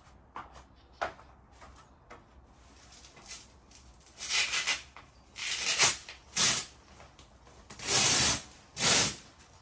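Rustling and swishing of a Fatboy bean bag's heavy fabric cover as it is tugged and pulled off the inner bag, in five bursts during the second half.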